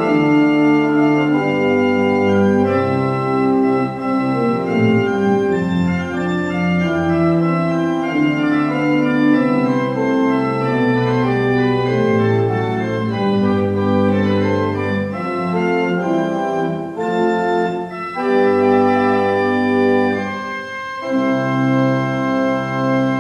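Organ playing the closing postlude of a church service: full, sustained chords changing every second or two, with a brief pause near the end.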